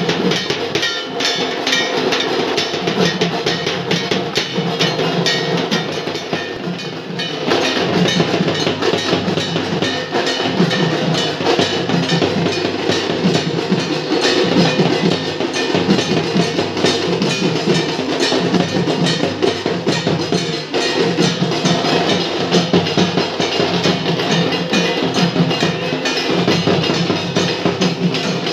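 Percussion-heavy music with fast, continuous drumming and clacking strokes.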